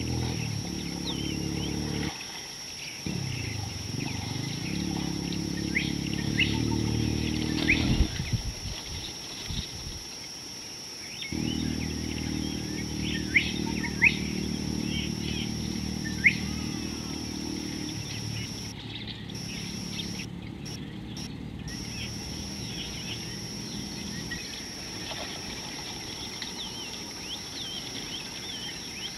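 Scattered short bird chirps over a low droning hum that shifts in pitch, cuts out twice early on and fades in the second half, with a steady high-pitched whine underneath.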